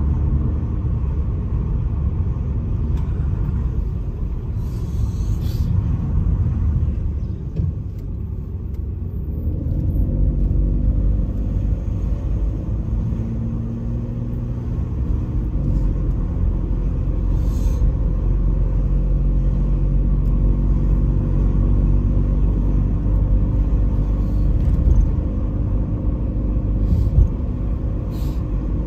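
Steady low rumble of a vehicle driving along a street, engine and road noise together; the engine tone rises as it picks up speed about ten seconds in.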